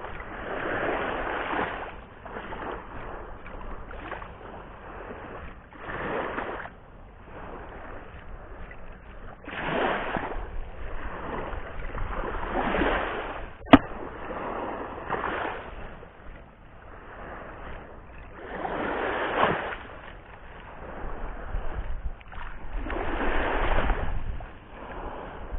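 Sea waves breaking and washing up the shore in surges every few seconds, over a low rumble. There is a single sharp click or knock about halfway through.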